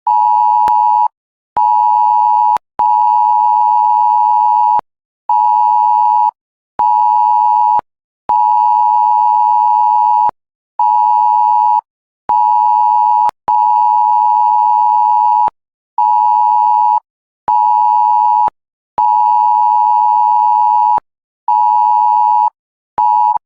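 Mobile phone sounding a cell-broadcast emergency alert attention tone: a loud, steady electronic beep switched on and off in a repeating pattern of one long beep of about two seconds followed by two shorter beeps of about a second, with short gaps between.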